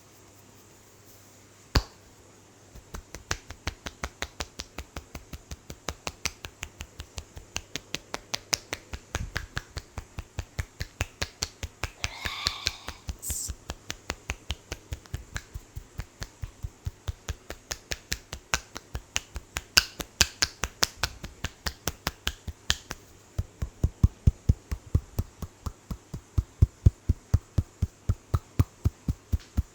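Percussive head-massage tapping: a long run of sharp, rapid clicking taps, about four a second. It starts after a short pause that holds one loud single click.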